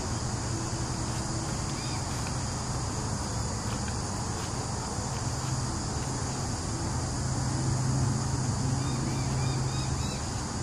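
Steady high-pitched insect chorus, with a low hum underneath that grows louder about seven to nine seconds in.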